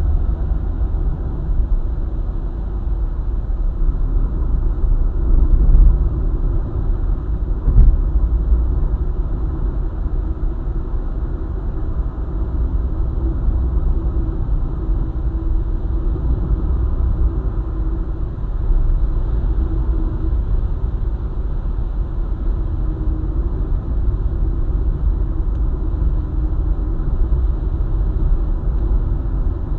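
Car driving at speed on a highway: a steady low rumble of road, tyres and engine, with a brief thump about eight seconds in.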